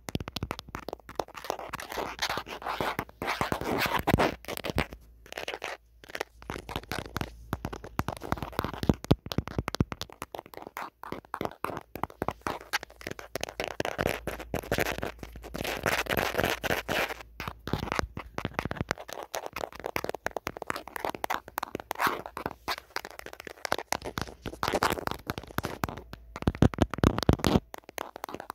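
Natural fingernails tapping and scratching on the camera of an old phone: quick runs of small clicks mixed with stretches of scratching.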